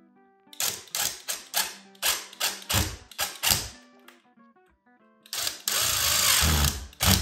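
Cordless drill driving screws through plastic plaster anchors into a plaster wall: a string of short trigger pulses about three a second, then a louder steady run of the drill near the end as a screw is pulled tight.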